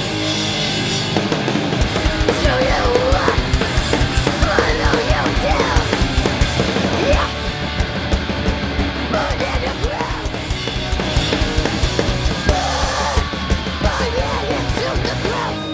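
Hardcore punk band playing live: full drum kit, bass and electric guitar at loud volume, with a woman's vocals into a microphone in two phrases. The drums kick in hard about two seconds in.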